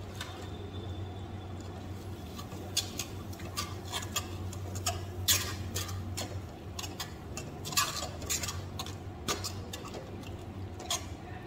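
Metal spatula scraping and clinking against a kadhai as frying chole masala is stirred, in irregular strokes that start a couple of seconds in, over a steady low hum.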